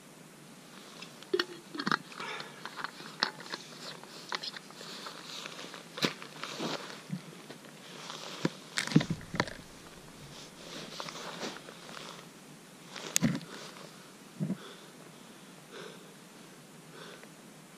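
Close rustling and crunching of a hiker's jacket and gear being handled, with snow crunching under it: a scatter of irregular clicks and scrapes, loudest about halfway through, dying down near the end.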